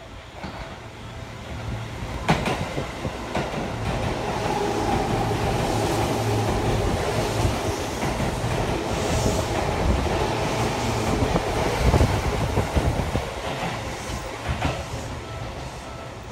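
Seibu 10000 series Red Arrow limited express, an electric train, passing through a station without stopping: its rumble builds over the first few seconds, holds while the cars rush past, then fades as it draws away. A few sharp wheel clacks stand out.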